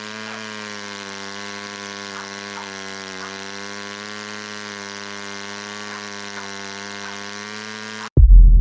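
A steady buzzing hum holding one pitch, then a sudden loud, deep rumble about eight seconds in.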